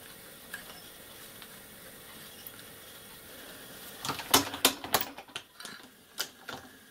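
Steel parts and tools on a drill's machine vice clinking and knocking as the vice is unclamped and the part taken out: a quick run of sharp metallic clinks about four seconds in, and one more shortly before the end.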